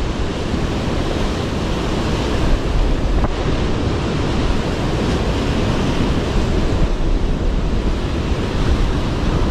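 Strong wind buffeting the microphone: a steady rushing noise with a heavy low rumble.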